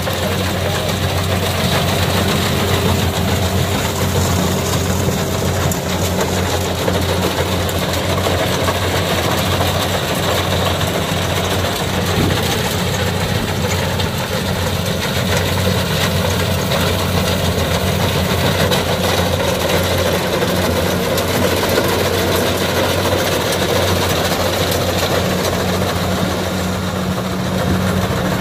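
Kubota DC68G combine harvester's diesel engine running steadily with a constant low drone as the machine harvests lodged rice.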